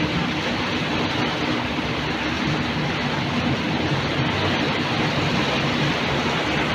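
River cruise boat's engine running at a steady, unchanging drone, under a constant rush of wind and water past the hull, as heard from the lower deck near the stern.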